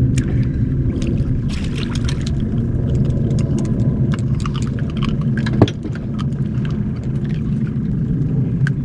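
A redfish being reeled in on a spinning rod and swung aboard a small boat: scattered small clicks and rattles of reel and tackle, and one sharp knock a little past halfway, over a steady low rumble.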